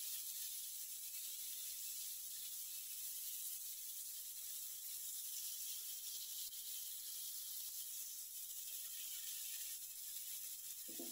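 Banana slices sizzling in butter and caramelizing sugar on a flat griddle pan over a low gas flame: a steady, gentle high hiss.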